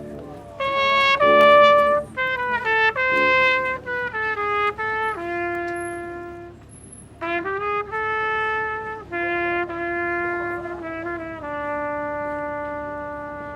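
A trumpet playing a melody alone, a string of notes broken by a short pause just past halfway, with some long notes and a final note held for about two seconds that fades out.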